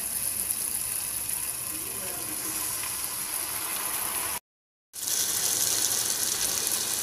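Masala sizzling in a hot pan as water is poured into it from a jug and cup: a steady hiss that drops out for half a second about four and a half seconds in, then returns a little louder.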